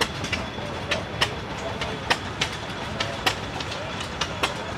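Antique hit-and-miss engines running, sharp irregular clicks about two or three a second over a low hum.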